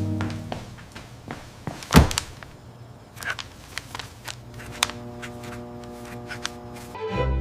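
Soft sustained background music chords, with one sharp thud about two seconds in and scattered light clicks and taps.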